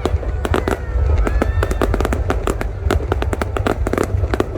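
Fireworks display: a rapid, dense string of sharp bangs and crackling pops, several a second, over a steady low rumble.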